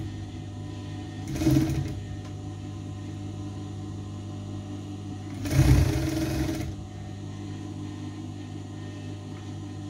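Sewing machine stitching in two short runs, a brief one about a second and a half in and a longer one from about five and a half seconds, over a steady low hum.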